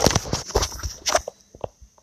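Handling noise of a phone on a tripod being picked up and carried: knocks and rubbing against the microphone, loudest at the start, then scattered clicks, with footsteps on grass.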